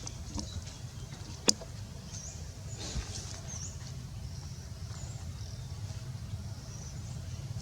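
Baby monkey making faint, short, high-pitched squeaks that glide in pitch, several times over a steady low rumble. A single sharp click about a second and a half in is the loudest sound.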